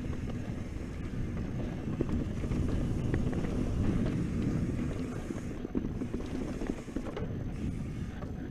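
Mountain bike riding fast down dirt singletrack: wind buffets the microphone in a steady low rumble, with tyres rolling over dirt and scattered sharp rattles and knocks from the bike over bumps.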